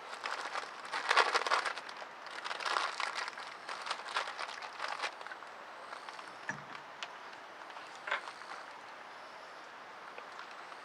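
Rustling and crinkling handling noise in irregular bursts for the first few seconds, then quieter, with a few faint clicks and a soft low thump about six and a half seconds in.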